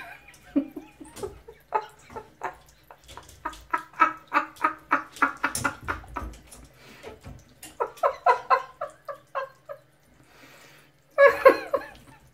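A person laughing in repeated bursts of short rhythmic breaths, with a louder laugh about eleven seconds in.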